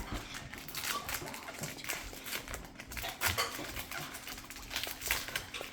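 The plastic wrapper of a Topps Series 2 baseball card pack crinkling and tearing as it is opened, a run of irregular crackles and rustles.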